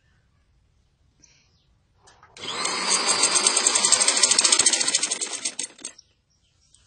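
Sewing machine stitching a seam, running in a rapid, even rhythm for about three and a half seconds from about two seconds in, picking up and then easing off before it stops.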